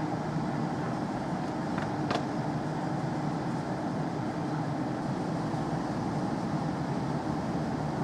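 JR Kyushu 815 series electric train standing at the platform, its onboard equipment giving a steady low hum, with a faint click about two seconds in.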